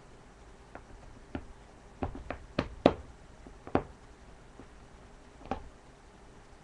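A series of light knocks and clicks from small objects being handled, thickest about two to four seconds in.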